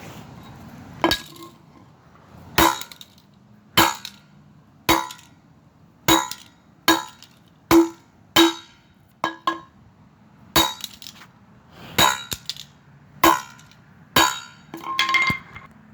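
A toy car being bashed over and over: about fifteen sharp metallic clanks, roughly one a second, each ringing briefly.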